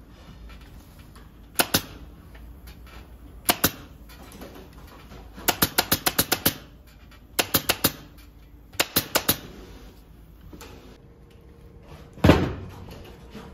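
Pneumatic upholstery staple gun firing staples through velvet fabric into a sofa frame: short runs of sharp clacks, two at a time at first, then a quick string of about eight, then two runs of four. Near the end there is a single louder, heavier thump.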